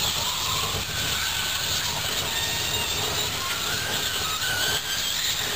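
Burning Ford F-150 pickup truck: the fire gives a steady roar and hiss, with faint high whistling tones coming and going.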